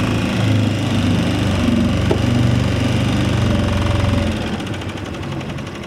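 Outboard motor of a small fishing boat running steadily under way, a low steady drone. About four seconds in it eases off and turns quieter.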